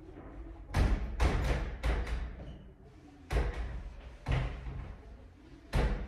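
A run of sharp knocks and thuds in uneven clusters, several close together in the first two seconds, then single ones a second or so apart.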